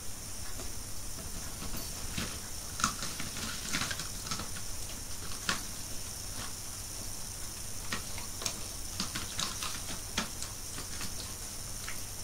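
A dog nosing through a plastic chocolate-box tray for food pieces: scattered light clicks and rustles of the plastic tray, at irregular intervals.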